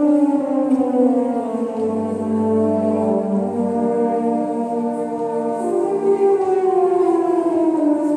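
Wind band with brass playing a slow funeral march: sustained chords, a low bass note a couple of seconds in, and a melody line sliding downward near the end.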